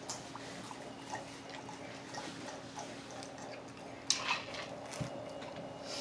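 Close-miked eating sounds of chicken wings being chewed, scattered small clicks and smacks over a faint steady hum, with one sharp click about four seconds in and a soft thud about a second later.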